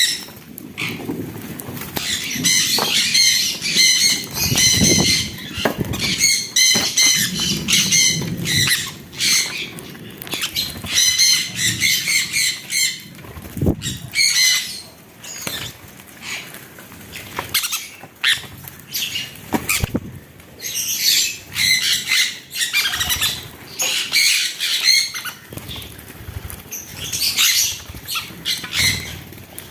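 Pet birds chattering, with rapid, repeated high chirping calls, mixed with scattered sharp clicks and knocks.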